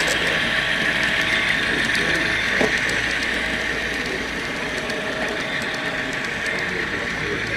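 N scale model freight train rolling past on its track, the wheels making light, rapid, irregular clicking over a steady running rush.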